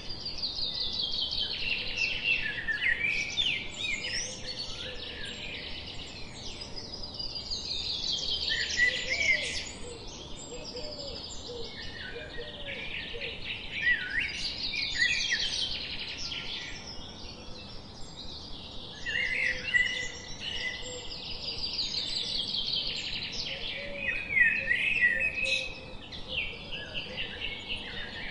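Birdsong: a trilling song that falls in pitch, repeated every few seconds, with scattered chirps between, over a steady background hiss.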